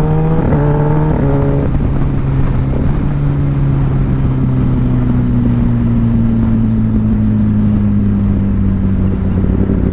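Kawasaki ZX-10R's inline-four engine accelerating while riding, with two quick upshifts about half a second and a second in, each a brief cut and a drop in pitch. After that it settles into a steady cruise, its pitch slowly falling.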